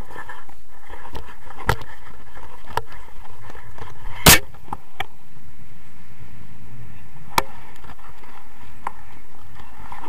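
Steady rush of airflow over an action camera's microphone in paraglider flight, broken by several sharp clicks and knocks, the loudest about four seconds in.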